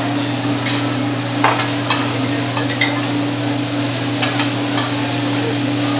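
Food sizzling on a hibachi flat-top griddle, with a metal spatula clinking against the griddle several times at irregular moments, over a steady low hum.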